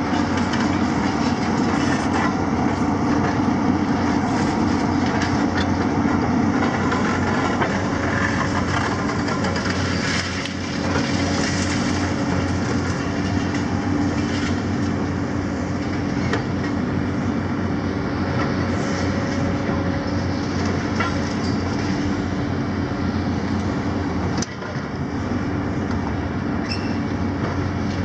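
Diesel engines of Hitachi and JCB demolition excavators running steadily under load, with scattered clanks and rattles of rubble being worked.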